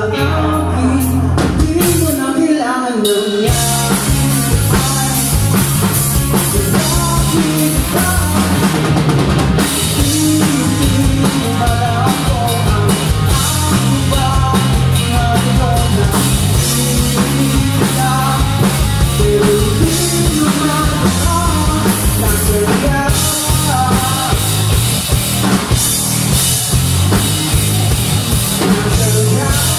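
Live rock band playing: drum kit, bass guitar and electric guitars. The drums and full band come in heavily about three and a half seconds in.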